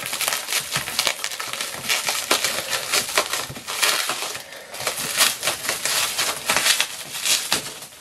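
Packaging being handled and opened: crinkling and rustling of wrapping and boxes, with many small clicks and knocks throughout.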